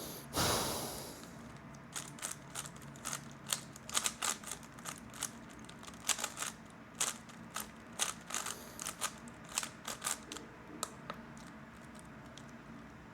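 Irregular clicking of a 3x3 speedcube's layers being turned quickly, several clicks a second, stopping about eleven seconds in. A short rushing noise comes just after the start.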